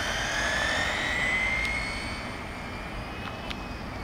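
Traxxas XO-1 RC car's brushless electric motor and drivetrain whining at speed as the car runs away across the pavement. The high whine rises in pitch, levels off and fades with distance.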